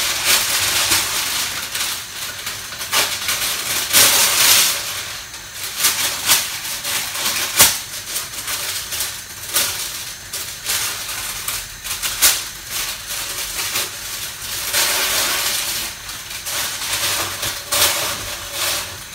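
Greaseproof paper being pulled off, torn and crinkled to fit a frying pan: a run of rustling and sharp crackles, loudest about four seconds in, over a steady hiss from pans on the hob.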